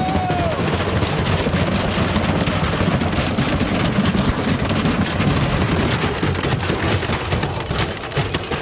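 Washing machine spinning with bricks inside its drum: a loud continuous rumble and rattle packed with rapid bangs and knocks as the machine batters itself apart, dying down near the end.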